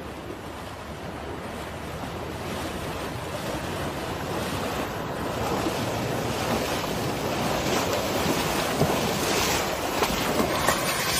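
Asian elephants wading through deep floodwater, the water splashing and churning around their legs and growing louder as they come closer, with wind noise on the microphone.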